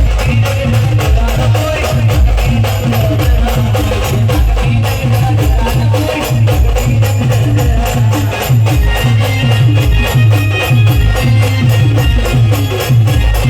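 Village band playing an Adivasi folk dance tune: a fast, steady, heavy drum beat with dense rattling percussion over it and a held melody.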